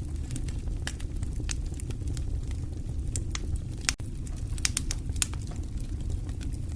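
Fireplace fire crackling: a steady low rumble of flames with frequent irregular sharp pops and snaps, and a split-second gap about four seconds in.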